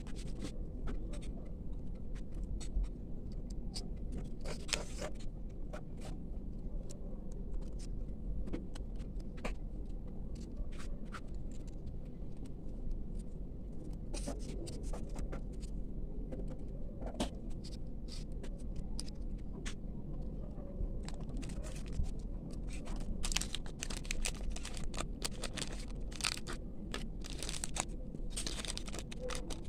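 Hands handling and unwrapping small paper and plastic packaging: scattered scratchy rustles and light clicks that grow busier and crinklier near the end, over a steady low background hum.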